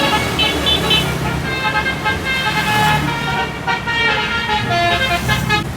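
Multi-tone 'telolet' bus horn playing a quick jingle of changing notes over a running bus engine.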